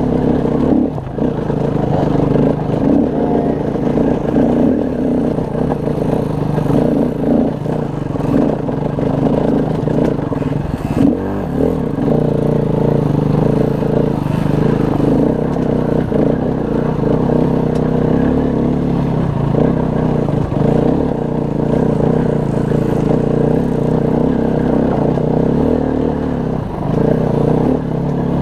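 Dirt bike engine running under load at steady low revs while climbing a steep rocky hill. The throttle eases briefly twice, about a second in and near the middle. Clattering from the bike over rocks runs through it.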